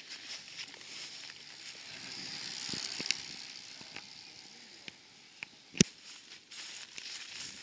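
Road racing bicycle passing on a concrete lane: a hiss of tyres and rushing air swells and fades, with a few sharp clicks, the loudest about six seconds in.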